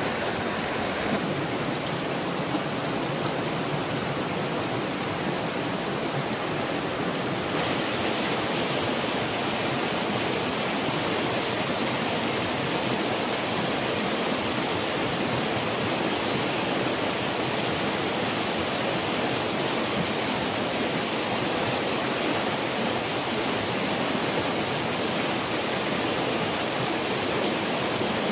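Rocky mountain stream rushing over small cascades: a steady, unbroken wash of running water.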